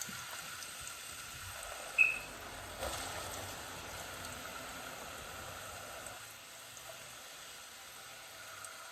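Sliced onions sizzling in hot oil in a frying pan, a steady hiss that eases slightly after about six seconds. A single sharp clink about two seconds in.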